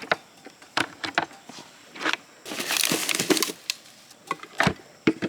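Handling noises: a string of sharp clicks and knocks, with a rustling burst lasting about a second in the middle.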